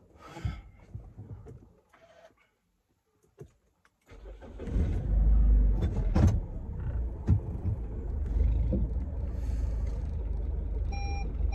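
Car engine starting about four seconds in, heard from inside the cabin: a sudden low rumble that swells and then settles into a steady idle. A short electronic beep sounds near the end.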